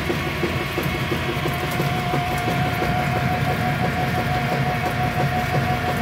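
Kenmore top-load washing machine agitating, its motor and transmission running with a low hum and a fast rattle, and a steady whine that comes in about two seconds in. It is an ugly-sounding, abnormal washer noise.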